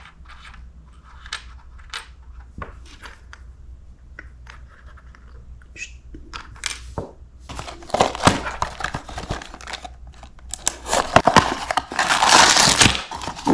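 Small clicks of tiny metal and plastic miniature pieces (a pot, lid and spoon) being handled and set down on a wooden table, then a small cardboard box being torn open, a rasping, crinkling tearing that is loudest near the end.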